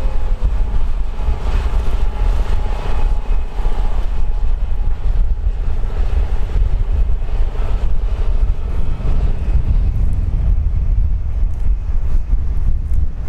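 Tractor pulling a heavy disc harrow through a field, a steady low rumble with wind buffeting the microphone.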